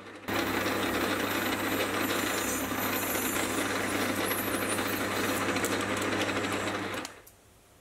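Small lathe running while a parting tool cuts into a spinning white plastic workpiece to part off a trepanned ring: a steady motor hum under an even cutting hiss, which cuts off suddenly about seven seconds in.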